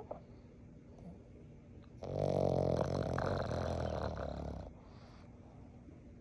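A Boston terrier puppy snoring loudly: one long snore about two seconds in that lasts nearly three seconds, with quiet between breaths.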